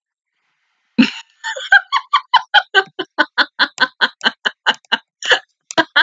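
A woman laughing hard: a rapid run of short "ha" bursts, about five a second, starting about a second in.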